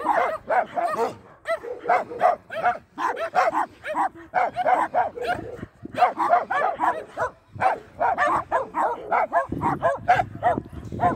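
Several dogs yipping and whining excitedly in quick, overlapping short calls, several a second, as they crowd around a person for attention.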